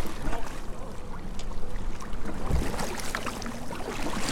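Choppy water lapping and splashing against a kayak's hull, with the splashes of paddle strokes dipping in.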